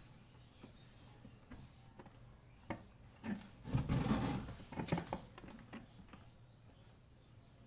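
Hands working on a washing machine's wiring and casing: scattered clicks and knocks, with a louder rubbing and rustling of parts about three to four seconds in.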